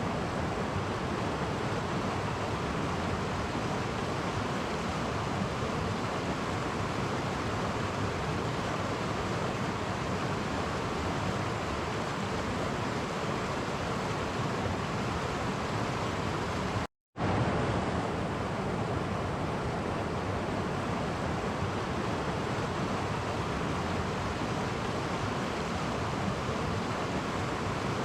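Clear woodland stream flowing over small cascades: a steady rushing of water. It cuts out to silence for a split second about two-thirds of the way through, then resumes.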